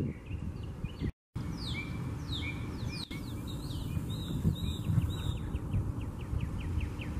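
A small songbird singing: a run of quick descending whistles, then a fast trill of short repeated notes in the second half, over a steady low background rumble.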